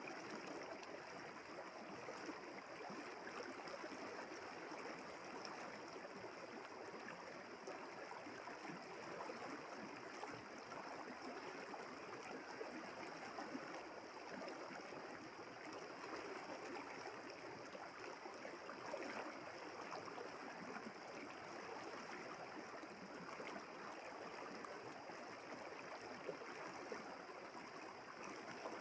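Small river flowing steadily over stones, an even babbling rush of water.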